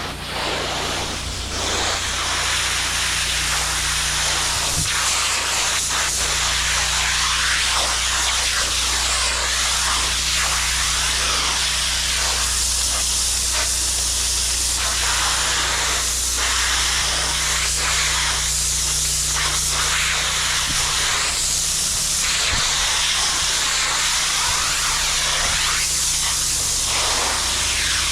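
Pressure washer wand spraying through a low-pressure safety tip onto artificial turf, a continuous hiss that swells and eases as the spray moves, over a steady low hum. Concentrated Simple Green is being laid down to soak the turf.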